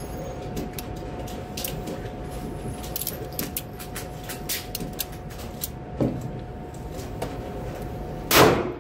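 Scattered small clicks and knocks over a steady faint hum, then one loud gunshot about eight seconds in from a Heritage Barkeep snub-nosed .22 rimfire revolver.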